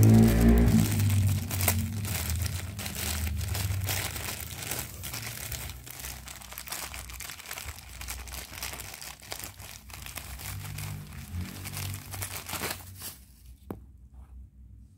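Thin clear plastic bag crinkling and rustling as hands unwrap it and pull out spare coping-saw blades, loudest at the start. The crinkling stops near the end, leaving a single small click.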